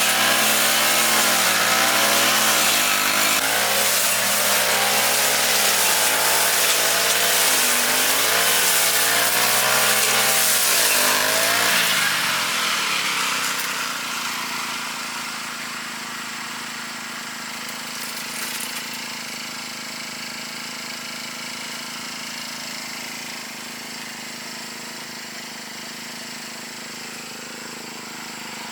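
Lawn mower's small petrol engine running under load, its pitch rising and falling as it cuts. About twelve seconds in it drops back to a quieter, steady running.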